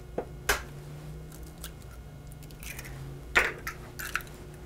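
A raw egg being cracked on a glass bowl and broken open: a light tap or two about half a second in, then a louder sharp crack a little after three seconds in, followed by a few smaller clicks.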